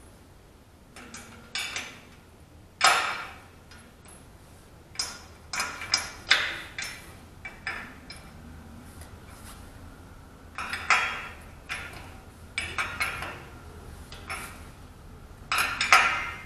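Steel wrenches clinking and clanking against a nut and each other as a jam nut is tightened on a tracked mower's track-tensioning bolt, in irregular sharp metal strikes, some in quick clusters.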